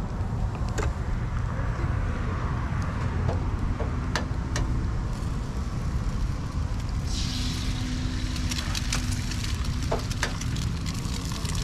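Eggs cracked onto a hot oiled griddle: sharp taps of shells, and from about seven seconds in a bright sizzle as the eggs hit the hot surface. Under it, a steady low rumble of wind on the microphone.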